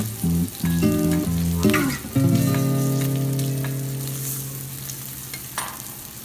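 Shrimp sizzling on a teppanyaki iron griddle, with a couple of short metal scrapes as the spatula and knife work the plate. Background music plays over it: a few short chords, then one long chord that fades from about two seconds in.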